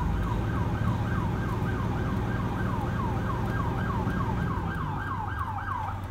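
Police car siren cycling in a fast, repeated falling yelp, about three sweeps a second, sounded as a warning to residents. A vehicle engine's low rumble runs underneath. The siren stops just before the end.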